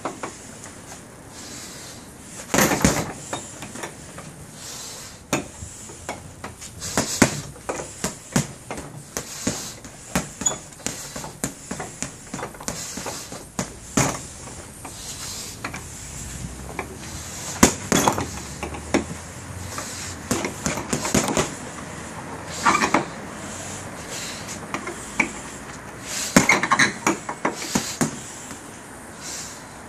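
Boxing gloves punching a heavy bag: sharp thuds in bursts of several quick punches with short pauses between, the hardest flurries about 3, 18 and 27 seconds in.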